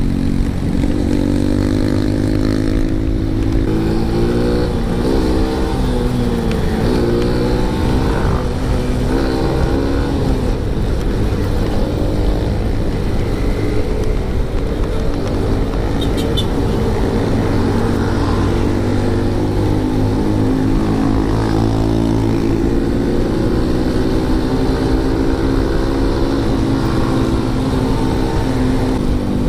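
Motorcycle engine running on the road, its pitch rising and falling several times in the first several seconds as it accelerates and eases off, then holding steadier at cruising speed.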